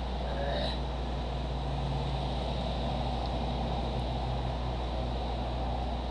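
Steady low hum with an even hiss underneath: the recording's background noise, with no other sound standing out.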